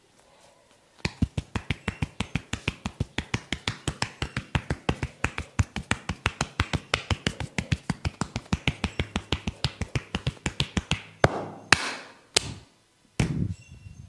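Rapid rhythmic tapping massage, sharp percussive strikes on the head or body at about six or seven a second, ending with a few heavier, louder slaps.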